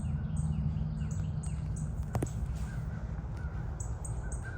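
Birds calling repeatedly in short, high calls, over a steady low rumble.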